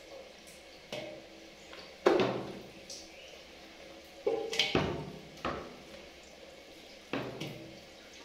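Hand-held shower head spraying steadily into a stainless steel tub, with five or so sudden splashes and knocks as a baby monkey's hand hits the spray and the metal, the loudest about two seconds in and a quick cluster near the middle.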